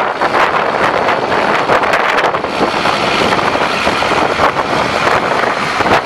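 International DT466 7.6 L inline-six turbo diesel of an applicator truck running as the truck drives slowly past, mixed with wind buffeting the microphone.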